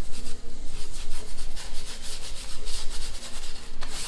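Brush scrubbing primer onto the back of a porous gypsum decorative-stone tile in quick, uneven rubbing strokes.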